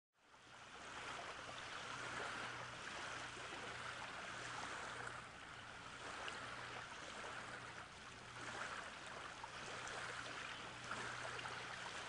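Faint, steady rush of flowing stream water, fading in just after the start, with a faint low hum beneath it.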